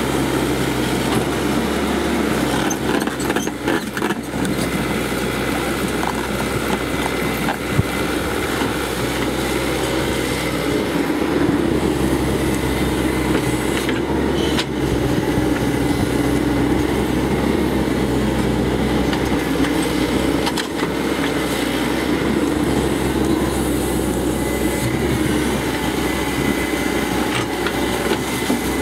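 Cat 312C hydraulic excavator's diesel engine running steadily while digging, with a few short knocks of the working machine; the sharpest comes about eight seconds in.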